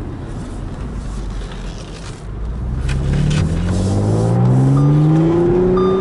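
2014 Audi S5's 3.0-litre supercharged V6, heard from inside the cabin, running low at first. From about halfway it revs up as the car accelerates, rising steadily in pitch and getting louder to the end.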